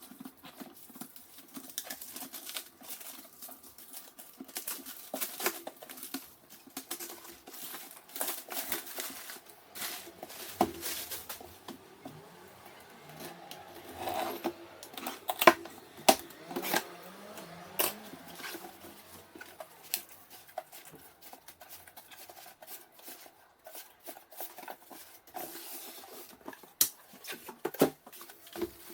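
Irregular clicks, taps and light knocks of hard objects being handled at close range, with faint shuffling between them, typical of PC parts and their packaging being picked up and set down during a build.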